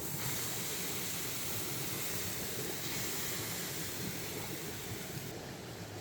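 A steady hiss that starts abruptly and cuts off shortly before the end, over a lower continuous rushing noise.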